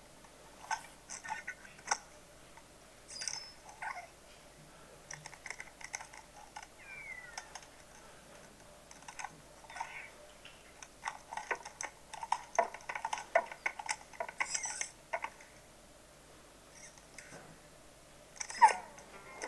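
Sound effects of animated jointed desk lamps moving: faint scattered clicks, taps and small metallic squeaks of the lamp joints. There is a short squeak that glides up and down about seven seconds in, denser clicking a few seconds later, and a louder click with a squeak near the end.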